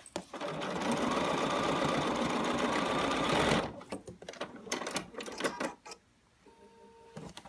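BERNINA 770 sewing machine stitching steadily along a binding seam for about three and a half seconds, then stopping abruptly. A few light clicks and rustles of handling follow.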